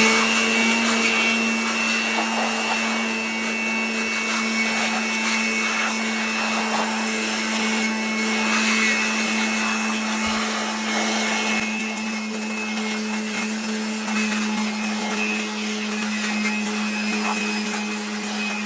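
Handheld electric blower running steadily at full speed, a steady motor whine over rushing air, blowing the built-up dust out of a desktop computer's heatsink, card slots and memory slots.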